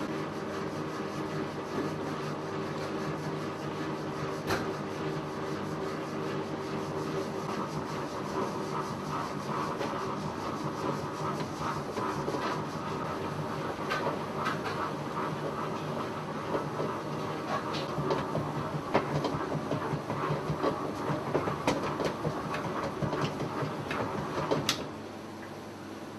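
Old commercial stand mixer running with a steady mechanical hum and irregular clicks and knocks, which come more often in the second half. The motor cuts off suddenly about 25 seconds in.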